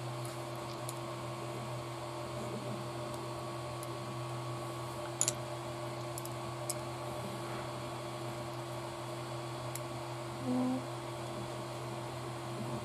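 A steady low electrical hum of room background, with a few faint sharp clicks of small plastic kit parts being handled, the clearest about five seconds in.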